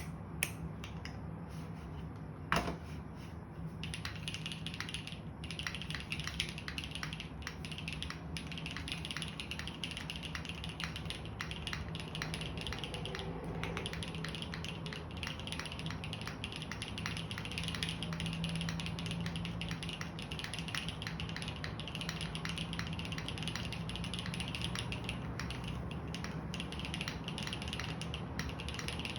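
Mechanical keyboard typing: lubed JWK Tungsten linear switches with Cherry top housings on a polypropylene-plate, gasket-mount JJW Moment60 with GMK keycaps. A few separate key presses, one sharper than the rest, lead into fast, continuous typing about four seconds in.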